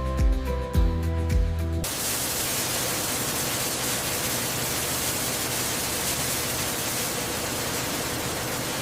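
Background music with a steady beat cuts off about two seconds in. A steady, even hiss of rushing air from a grain-cleaning dust extraction unit follows.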